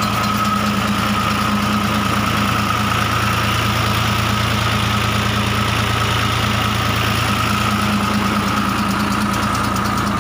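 New Holland Fiat 480 Special tractor's three-cylinder diesel engine running at a steady speed, driving a tube-well pump for irrigation.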